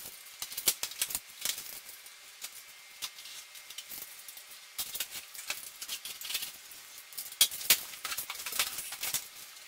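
Packing tape being slit with a box cutter and a large cardboard box's flaps pulled open: irregular scratching, rustling and sharp clicks, with two louder cracks about seven and a half seconds in.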